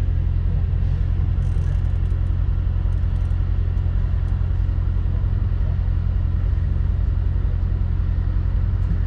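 Chevrolet C7 Corvette's 6.2-litre LT1 V8 running at a steady idle, heard from inside the cabin as a low, even rumble.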